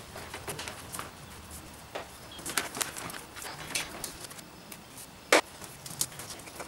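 Light clicks and rustles of wires and a plastic wiring harness being handled, with one sharp click about five seconds in.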